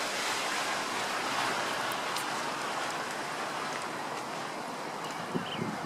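Tyre hiss of traffic passing on wet, hail-strewn streets: a steady rushing noise that swells about a second and a half in and then slowly fades. A few soft thumps near the end.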